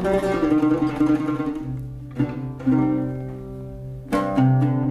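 Solo oud played with a plectrum: separate plucked notes that ring and fade, the sound dying down for a moment before a louder note is struck about four seconds in.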